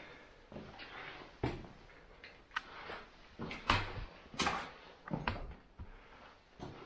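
Irregular knocks and scuffs of boots and hands on rock as someone clambers over boulders inside a small cave, mixed with camera handling noise; a few sharper knocks come a little past the middle.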